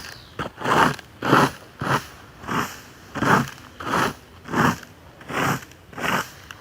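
A garden rake being dragged in repeated strokes, a crunchy scrape about one and a half times a second, each stroke swelling and fading.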